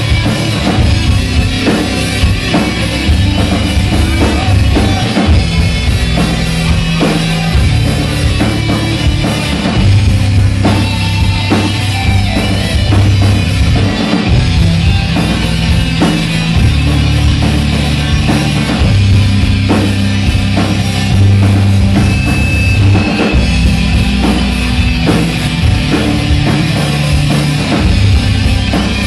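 A live rock band playing loud: two electric guitars through amplifiers over a drum kit, with low notes shifting every second or two.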